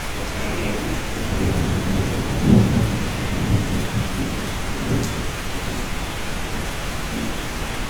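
Steady rain falling, with a low roll of thunder that swells about a second in, peaks around two and a half seconds and dies away by about five seconds.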